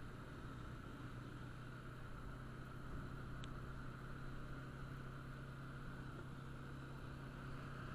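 Motorcycle engine running at a steady cruise, a constant drone with even road and wind noise underneath.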